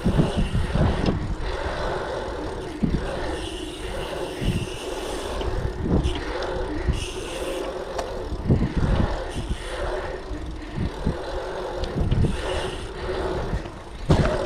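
Bicycle tyres rolling fast over an asphalt pumptrack, with wind buffeting the microphone and scattered knocks from the bike as it goes over the rollers.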